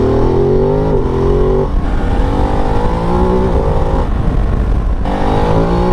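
Ducati DesertX's 937 cc desmodromic L-twin engine accelerating on the road, its note rising through the gears and dropping at upshifts, from second to third about two seconds in and again about five seconds in.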